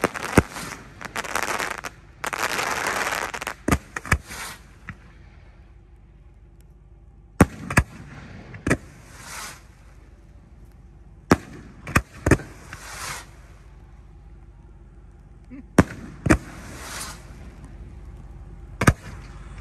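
Aerial fireworks bursting overhead. A dense crackling run with loud bangs fills the first few seconds, then single sharp bangs come every second or two, several of them trailed by a short crackle.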